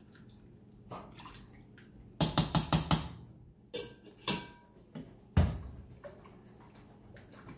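Metal ladle and lid clinking against stainless-steel cooking pots: a quick run of about six taps a couple of seconds in, a few more clanks, and one loud knock a little past halfway.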